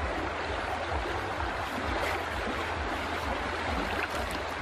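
River water flowing steadily, with a low rumble of wind on the microphone.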